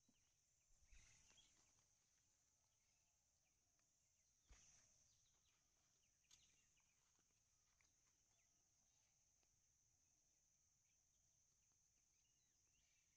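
Near silence: a faint, steady high-pitched insect drone in the field, with a few faint clicks, about a second in, at about four and a half seconds and at about six seconds.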